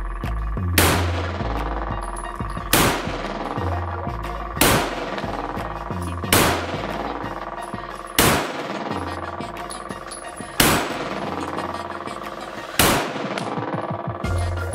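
Handgun shots fired one at a time, seven in all, about every two seconds, each a sharp crack with a brief echo. Background music with a heavy bass beat plays under them.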